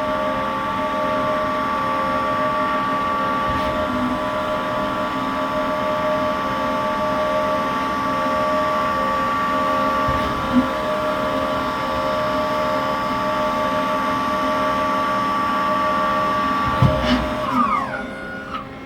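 Mori Seiki SL-15MC CNC lathe's live-tool drive running with a steady multi-tone whine while drilling, with a few faint knocks. Near the end there is a thump, and the whine falls in pitch as the drive spins down at the end of the program.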